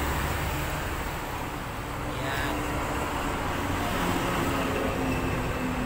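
Steady rumble and hiss of nearby road traffic, with a motor vehicle engine running.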